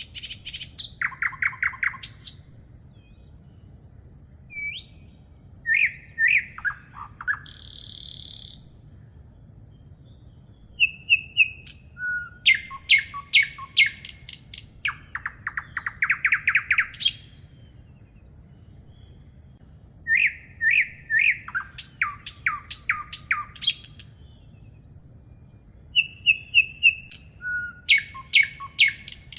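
Songbirds singing: bursts of quick chirps and rapid trills, coming in phrases every few seconds, with a brief hiss about 8 seconds in.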